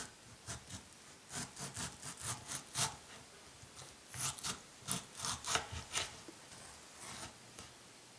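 Kitchen knife slicing through a mango on a wooden cutting board, in quick short cutting strokes. The strokes come in two busy runs, about one and a half to three seconds in and again about four to six seconds in, then thin to a few near the end.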